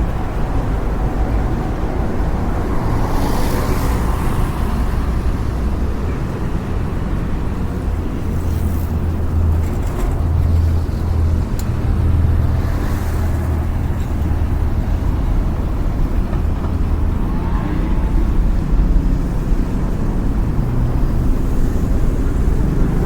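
Street traffic ambience: a steady low rumble of road traffic with cars passing now and then, their tyre hiss swelling and fading.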